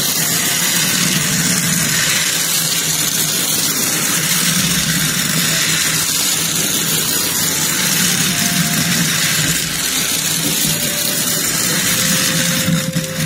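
Gashapon Mini Motor Train toy running around its plastic track at its high-speed setting: a steady, loud mechanical whir from its tiny 3 V motor, driven from a single 1.5 V cell through a step-up circuit.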